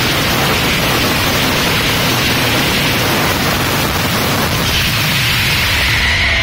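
Dense fireworks barrage: firework batteries fire so rapidly that the bangs and crackle merge into one loud, continuous noise, heard through a mobile phone's microphone.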